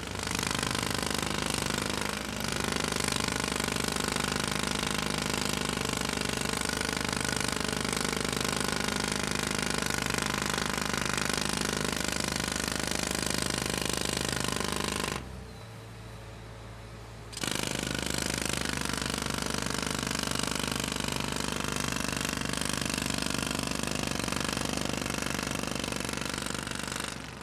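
Construction jackhammer hammering rapidly and continuously, breaking hard surface. About halfway through it stops for roughly two seconds, leaving only a low hum, then starts hammering again.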